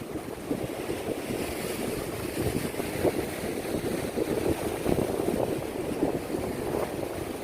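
Wind buffeting the microphone, with the sea's surf washing behind it.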